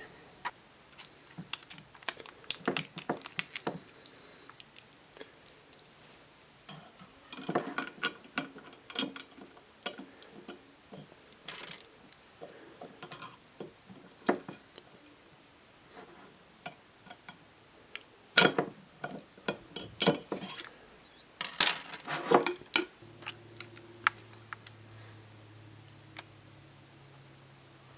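Plastic Rubik's Cube pieces clicking and clacking against each other and the glass jar as the cube is twisted and pieces are worked into place; irregular clicks with a few louder knocks around the middle. A faint low hum comes in near the end.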